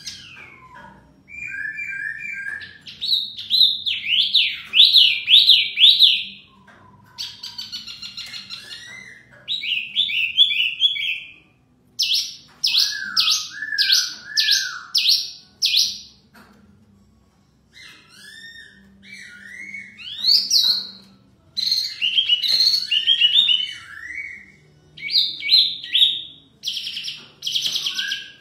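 A wambi mini (hwa mei mini) songbird singing loud, varied whistled phrases: quick trills and repeated up-and-down notes, traded back and forth with a poksay laughingthrush. There is a pause of about two seconds a little past the middle.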